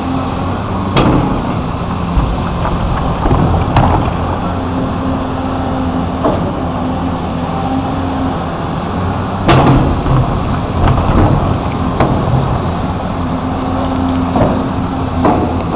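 Backhoe engine running steadily while digging, with sharp metal clanks and knocks scattered through it, the loudest about nine and a half seconds in.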